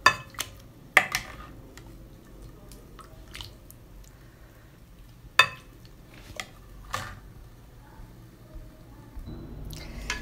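Plastic serving spoon scooping curry with thin gravy out of a clay pot and knocking against the pot rim and a glass bowl: a handful of sharp knocks spaced out over several seconds, loudest at the start, about a second in and about five seconds in, with gravy sloshing and dripping between them.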